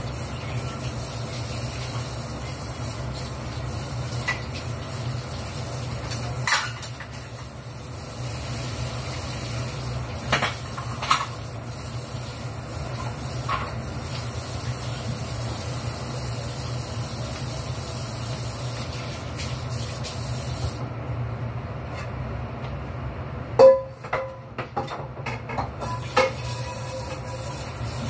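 Kitchen tap running into a sink while dishes are washed by hand, with scattered clinks of crockery over a steady low hum. Near the end the hiss of the water drops away for a few seconds, and several sharp clinks of dishes are the loudest sounds.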